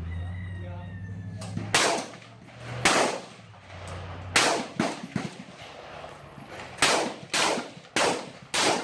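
Gunfire at an outdoor rifle range: about eight sharp shots at uneven spacing, some in quick pairs, beginning about a second and a half in. A steady low hum runs under the first second and a half.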